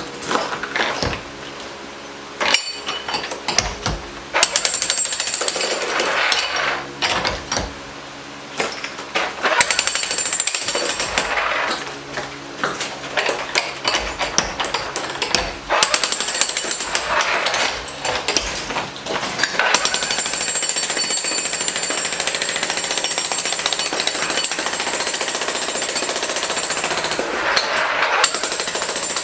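Jackhammer breaking out concrete curbs, hammering in long runs with brief pauses between them. The first few seconds hold only a few scattered knocks before the steady hammering starts.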